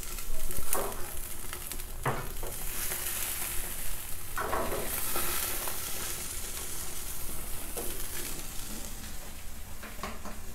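Two whole sea bream sizzling in a wire fish basket on a gas grill, a steady hiss, with a few short metallic knocks as the basket is handled and turned on the grate.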